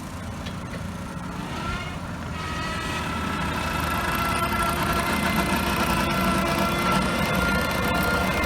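Skid steer engine running and getting louder over the first few seconds, with a high whine that rises a little in pitch and then holds steady.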